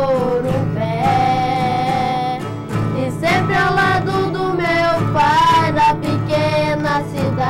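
Two boys singing together, accompanied by two strummed acoustic guitars; one long held sung note a little over a second in.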